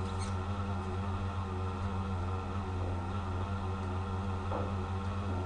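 A steady low hum with a fainter wavering whine above it, unchanging throughout.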